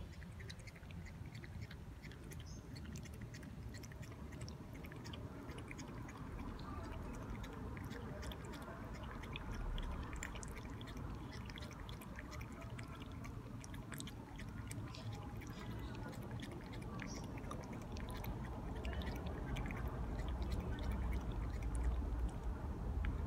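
Domestic cat lapping water from a bowl: a run of small, quick wet clicks from its tongue, over a low rumble that grows louder near the end.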